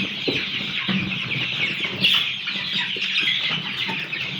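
A flock of young chickens, nearly four weeks old, peeping continuously in a dense chorus of overlapping high chirps.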